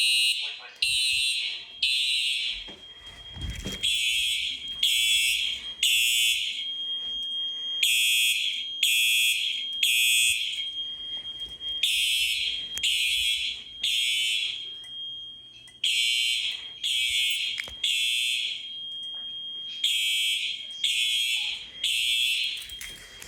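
Simplex electronic fire alarm horns sounding the temporal-3 evacuation signal: three short blasts, a pause of about a second, then again, over and over. A thin steady high tone runs underneath, and a dull thump comes about three and a half seconds in.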